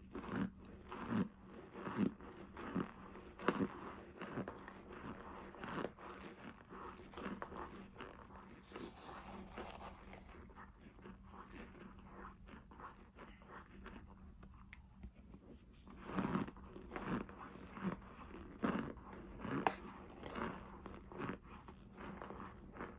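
Cornstarch being bitten and chewed: repeated crisp crunches of compacted chunks, about one or two a second, easing off for a few seconds in the middle and picking up again later.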